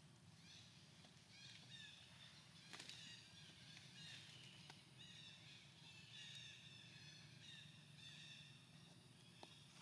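Faint, high-pitched animal chirping: many short calls in quick succession, with a few sharp clicks among them.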